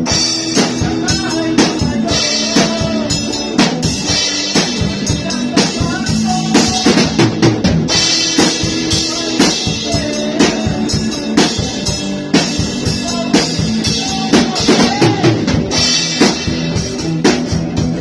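A band playing a rock jam: a drum kit keeps a steady beat with snare and bass drum hits under sustained guitar and bass chords.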